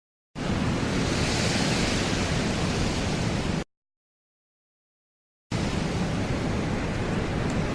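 Two magic-flying sound effects, each a steady rushing noise about three seconds long with a rumbling low end, starting and stopping abruptly with a silent gap of about two seconds between them.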